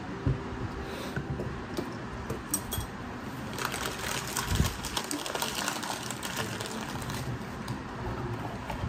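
A paper packet of custard powder crinkling and rustling as it is torn open, in dense crackles from about a third of the way in until near the end. A few light knocks come first.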